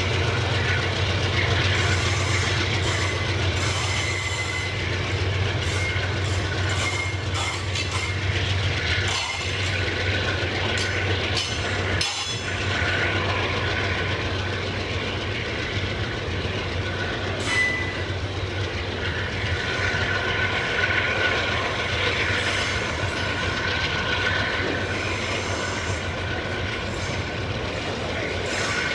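Freight train of covered grain hopper cars rolling past on a curve: a steady rumble from the wagons, with thin high wheel squeal coming and going and scattered clacks as the wheels cross the rail joints.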